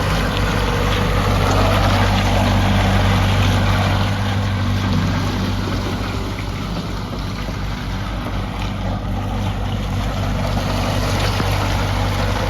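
Diesel engine of a Kubota U55-4 mini excavator running at a steady speed, with a deep steady hum and a rushing noise over it that is a little louder in the first few seconds.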